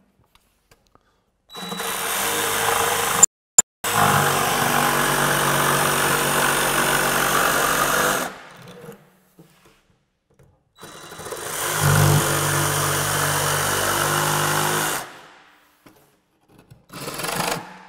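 DeWalt DCS331 18V cordless jigsaw cutting through a chipboard sheet with a flush-cut blade. It runs in two steady stretches of several seconds each, with a pause of a couple of seconds between them. The motor winds up to speed at the start of the second run.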